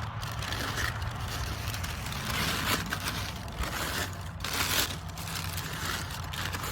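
Packaging crinkling and rustling as a parts-kit barrel is unwrapped by hand, in uneven bursts with two louder crackles about two and a half and four and a half seconds in, over a low steady rumble of traffic.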